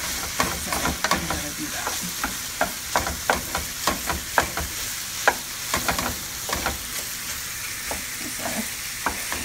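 Sliced baby bella mushrooms and ground meat sizzling in a frying pan while a wooden spoon stirs them, with frequent sharp knocks and scrapes of the spoon against the pan over a steady sizzle.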